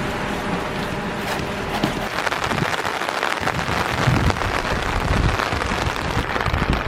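Rain pattering on an umbrella as a steady hiss of many fine drop ticks, thickening after a couple of seconds.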